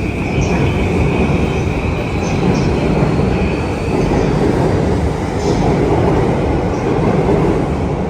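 Electric commuter train running on the rails: a steady, loud rumble with a high, even tone that fades out about four seconds in, and a few light ticks.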